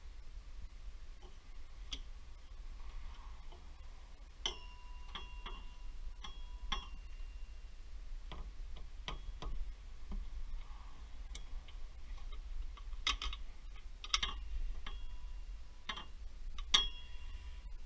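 Irregular sharp metallic clinks and taps, about a dozen, several with a brief ring: metal parts and hand tools being handled and knocked together. A faint steady low hum lies underneath.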